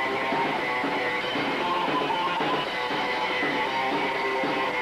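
Punk band playing live: electric guitar and drums, loud and steady without a break.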